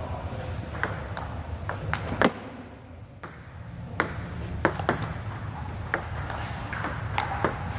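Table tennis balls clicking during a multiball drill: balls fed from the coach's hand bouncing on the table and struck by the player's bat, about a dozen sharp clicks at uneven intervals with a short lull about a third of the way in, over a steady low hum.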